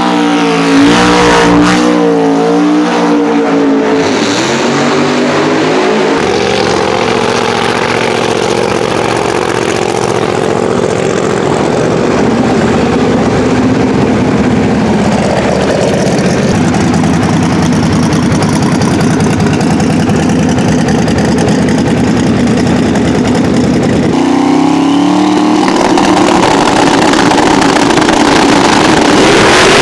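Twin-turbo 528-cubic-inch billet Hemi in a Dodge Challenger drag car, revving hard through a burnout, then idling loudly while it rolls up to the line. About five seconds before the end it revs up again and holds the higher revs.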